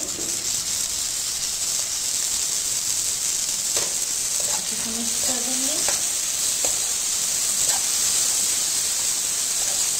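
Onion-tomato masala frying in hot oil in a kadai, a steady sizzle, at the stage where the oil has begun to separate from the masala. From about four seconds in, a few light clicks of the spatula against the pan as it is stirred.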